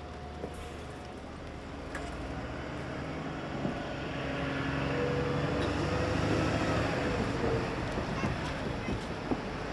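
A passenger train passing over a level crossing: a steady rush of wheel and rail noise that builds to its loudest about six seconds in, then eases a little.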